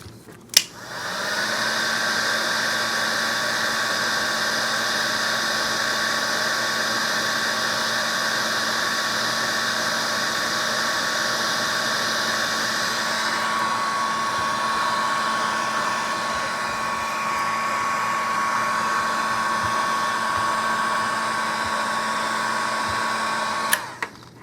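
Heat gun switched on with a click, blowing steadily with a constant whine for over twenty seconds, then switched off with a click near the end; it is heating Kydex holster plastic to soften it for reshaping.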